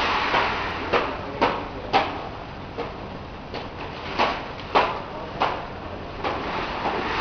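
Fabric spreading machine working, with about nine sharp mechanical clacks at uneven intervals of half a second to a second over a low steady hiss.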